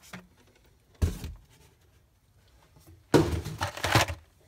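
Cardboard shipping case and blister-carded toy cars being handled: a single thump about a second in, then about a second of loud rustling and clattering of the packages.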